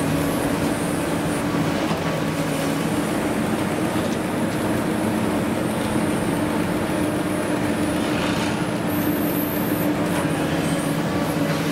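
Diesel engine of a long-reach demolition excavator running steadily under load. A short high-pitched squeal comes about nine seconds in.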